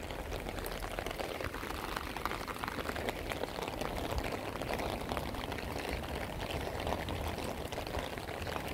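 Steady rain falling and pattering on wet pavement and stone, with many small drop ticks.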